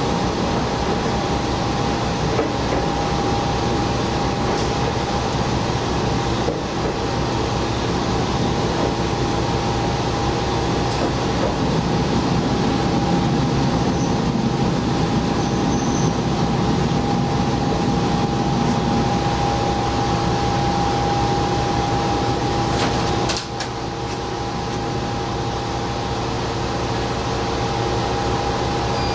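Diesel railcar running, heard from the cab: a steady engine and rolling hum with a constant whine. About 23 s in there are a few clicks and the noise drops a little as the car comes to a stop at a station, leaving the engine idling.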